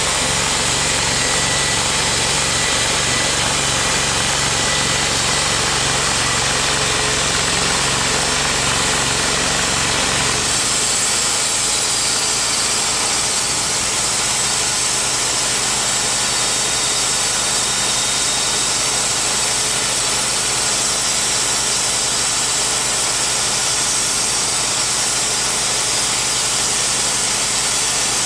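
Portable bandsaw mill's engine running steadily with the band blade finishing a cut through a white oak log. About ten seconds in, the deep low rumble drops away suddenly and the engine carries on at a lighter steady run while the saw head is returned.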